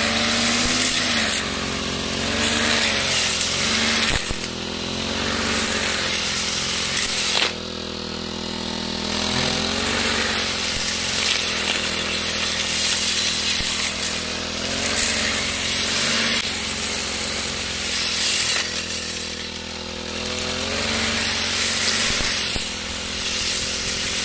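Brush cutter with a nylon-line trimmer head running and cutting grass. Its pitch rises and falls as the throttle is worked, with louder swells every few seconds.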